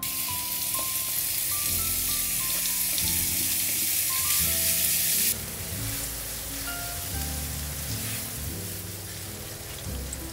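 Ground meat sizzling loudly in a hot oiled frying pan over high heat as it is tipped in. About five seconds in, the sizzle suddenly drops to a quieter steady frying while the meat is broken up and stirred with a spatula.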